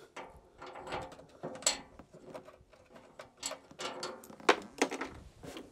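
Irregular clicks, clacks and scraping of metal parts being handled and fitted on a van's bare cab floor, with a sharp knock about two-thirds of the way through.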